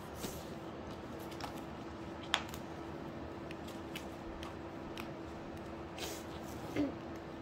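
Soft rustling and small clicks of paper sticker sheets being handled as stickers are picked and peeled off, with one sharper click a little over two seconds in. A faint steady hum runs underneath.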